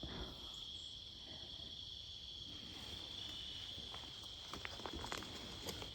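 Steady, high-pitched chorus of insects trilling in the woods, with a few faint clicks and rustles in the second half.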